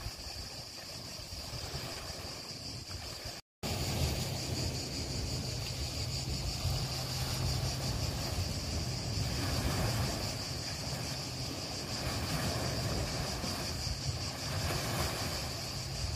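Coastal ambience: a steady wash of wind and surf with a low rumble underneath and a steady high-pitched buzz. It cuts out completely for a moment about three and a half seconds in, then comes back a little louder.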